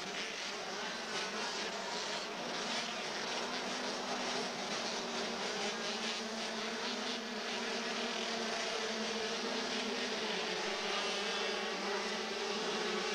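A gate full of 80cc two-stroke motocross bikes holding their engines on the rev at the start line, many engines wavering together. The pack then accelerates away as the gate drops, a little louder from about the middle on.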